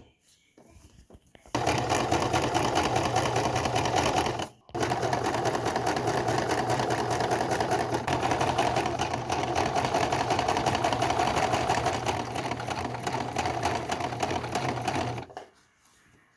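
Singer Simple sewing machine stitching a zipper onto jeans at a fast, even rate. It starts about a second and a half in, runs for about three seconds, pauses briefly, then runs for about ten seconds more before stopping.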